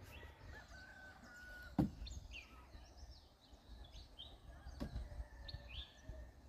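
Small birds chirping and calling over a low background rumble, with a sharp knock a little under two seconds in and a softer one near five seconds.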